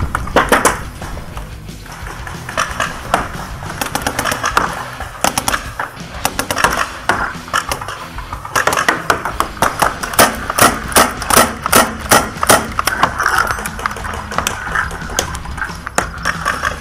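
Paintball markers firing: a string of sharp pops that comes faster and louder from about halfway in, several shots a second.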